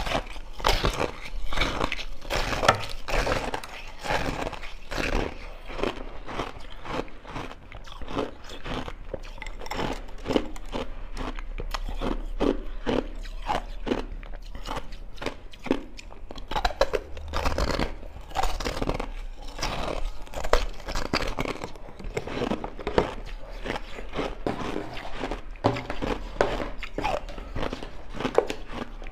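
A person biting and chewing a frozen block of packed ice crystals dipped in passion fruit juice: continuous crunching, made of many sharp cracks in quick succession.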